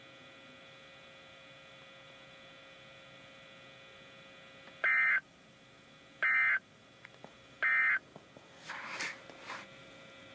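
Three short bursts of warbling digital data tones, each about 0.4 s and about a second and a half apart: the SAME end-of-message code from a NOAA Weather Radio transmitter closing its required weekly test. A steady radio hum runs underneath, and a couple of brief noisy crackles follow near the end.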